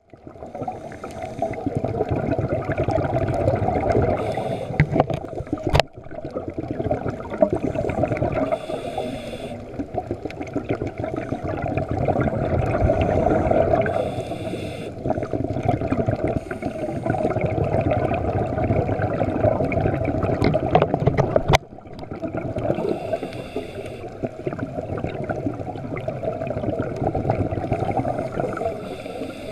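Scuba diver breathing through a regulator, heard muffled through a GoPro's underwater housing: a hiss and a burst of bubbles every four to five seconds over a steady rumble of water. Two sharp clicks, about six seconds in and near the two-thirds mark.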